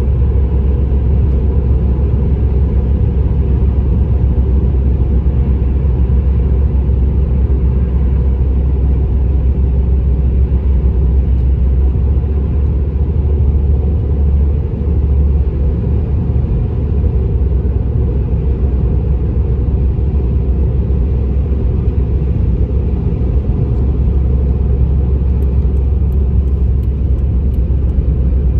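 Steady low rumble of a Subaru WRX's road, tyre and engine noise heard inside the moving car's cabin, with a brief dip about halfway through.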